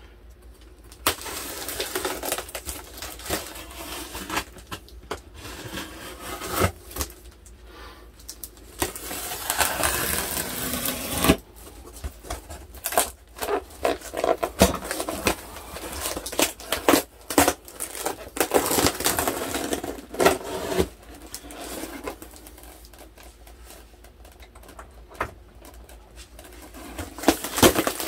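A knife cuts and scrapes through layers of packing tape on a foam shipping case. There are long rasping, tearing stretches of tape, with scattered clicks and knocks as the case is handled. Near the end the foam lid is pulled open.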